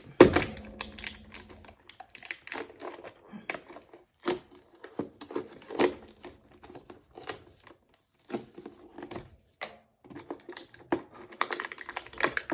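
Cardboard advent calendar window being opened and its contents unwrapped: crinkling and tearing packaging with scattered clicks and taps, loudest just after the start.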